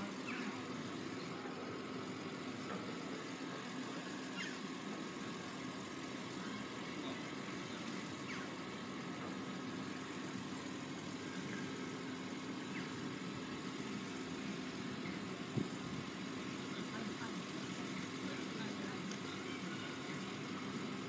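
An engine idling with a steady hum, and one sharp click about fifteen seconds in.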